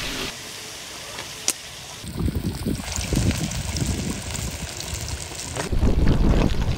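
Eel pieces deep-frying in hot oil in an iron wok over a wood fire, sizzling, with wind rumbling on the microphone that grows louder near the end.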